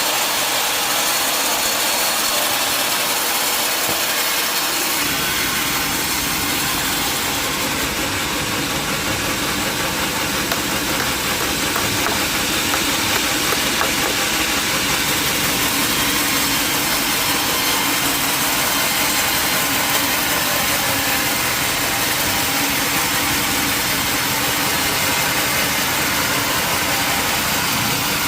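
Sawmill machinery running steadily, a loud even mechanical noise, with a deeper rumble joining about five seconds in.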